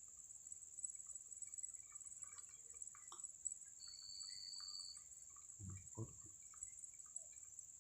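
Faint, steady high-pitched chirring of crickets. A short high tone sounds about four seconds in, and two soft thumps come about six seconds in.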